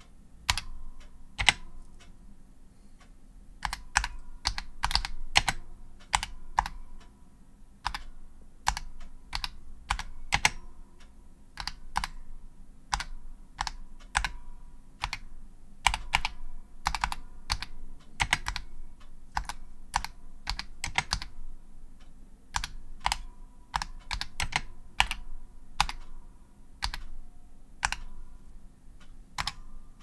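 Typing on a vintage Maxi Switch magnetic reed keyboard with SA keycaps: irregular, halting keystrokes, each a sharp clack of the keycap bottoming out, many followed by a brief ring.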